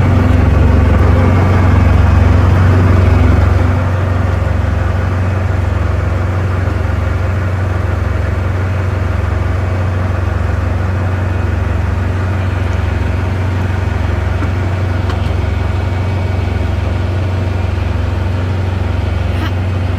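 Engine idling steadily with a low hum and a faint pulse about once a second; it gets slightly quieter about three and a half seconds in.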